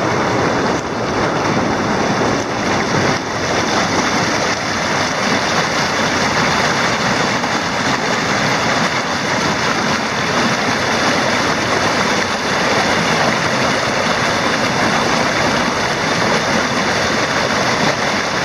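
River water pouring over a block stone weir, a steady rush of white water.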